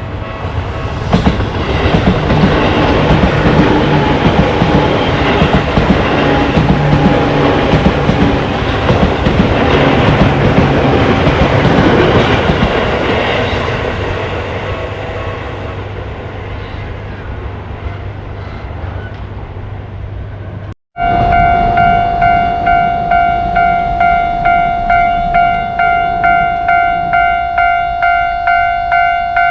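A Tobu Tojo Line train passes over a level crossing, rumbling and clattering, then fades away gradually. After a brief dropout about two-thirds of the way through, a railway crossing warning bell rings in a steady repeated ding, about one and a half strokes a second.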